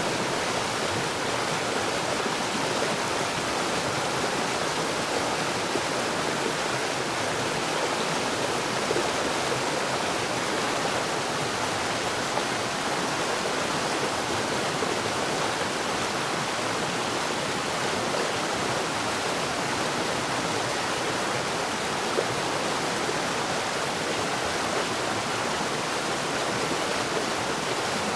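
Steady heavy rain falling, an even dense hiss with no breaks and no thunder.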